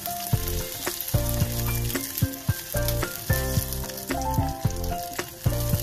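Raisins and carrot strips sizzling in hot oil in a pot, stirred with a silicone spatula, under background music that steps through short notes with a bass line.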